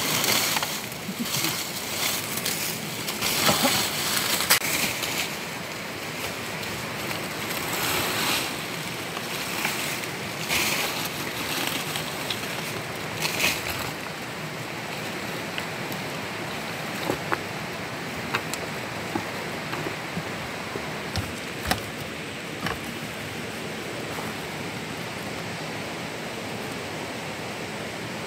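Rustling and scraping of dry leaves and undergrowth being handled, busiest in the first half, over a steady rushing hiss. A few sharp clicks come in the second half.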